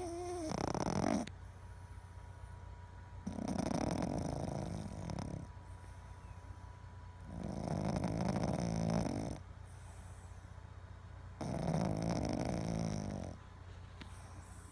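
Boston terrier snoring in its sleep: a short snore at the start, then three longer snores of about two seconds each, roughly one every four seconds.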